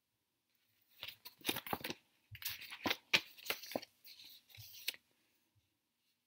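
Pages of a thin paperback picture book being turned and handled: a run of short paper rustles and clicks starting about a second in and stopping about a second before the end.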